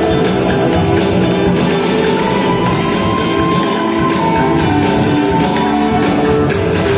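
Angklung ensemble music: shaken bamboo angklung rattling in steady trembling chords.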